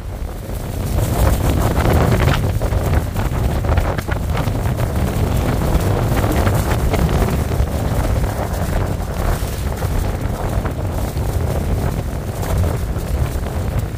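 Strong wind buffeting the microphone, a loud, steady low rumble.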